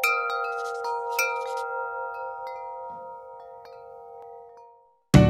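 Chimes tinkling and ringing in several tones as a logo sting. There is a quick cluster of strikes at first, then a few sparser strikes, and the ringing fades away over about five seconds.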